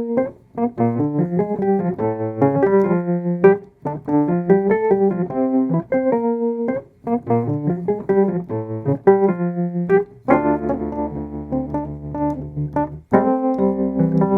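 Background music: a keyboard, piano or electric piano, playing short repeated notes, then held chords from about ten seconds in.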